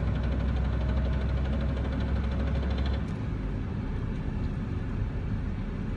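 1996 Dodge Ram's 5.9 L Cummins turbo diesel running as the truck drives in fifth gear; its low drone drops off about halfway through.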